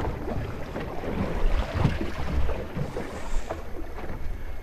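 Wind buffeting the microphone on a small open boat, a steady low rumble, with water splashing against the hull and a few light knocks.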